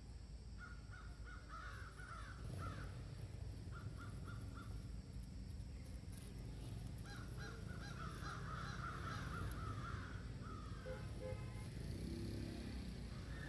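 Harsh animal calls in runs of quick repeated notes: several early on, a few short ones around four seconds in, and the longest run in the second half.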